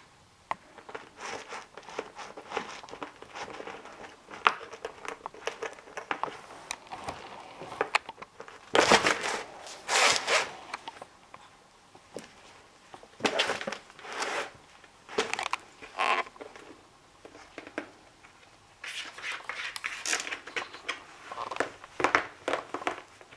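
Clear plastic pet cone crinkling and rustling in irregular bursts as two kittens bat at it, pounce on it and crawl into it. The loudest bursts come a little before the middle.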